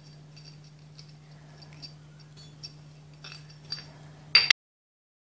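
Light metallic clinks and taps of motorcycle drum brake shoes and their return springs being handled, with a louder clink about four and a half seconds in, over a faint steady low hum. The sound then cuts off suddenly into silence.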